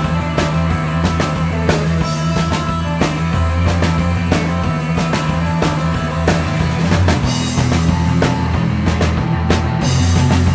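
Background rock music with a steady drum beat over a bass line.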